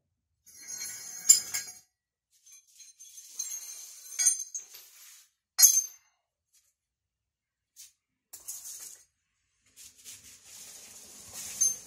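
Metal tools and hardware clinking and rattling in short, irregular bursts, with a few sharp clinks, the loudest about a second in and again near the middle.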